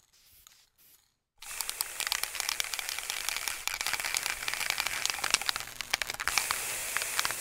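Near silence for about the first second and a half, then a dense crackling, crinkling noise made of many small clicks over a hiss, which carries on steadily.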